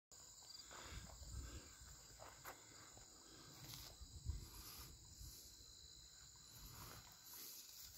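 Faint, steady insect chorus: a high continuous trill, over a low rumble with a few soft knocks.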